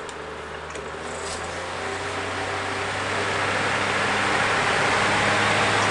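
Vintage Galaxy oscillating table fan switching to high speed: the rush of air grows steadily louder as the blades spin up, over a steady low motor hum.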